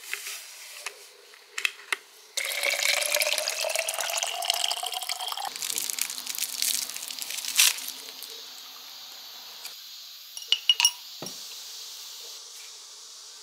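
Powder tipped from a sachet into a plastic bottle, then water poured in, its pitch rising steadily as the bottle fills. Crinkling of a lollipop wrapper being unwrapped follows, with a few sharp clicks, then a faint steady hiss.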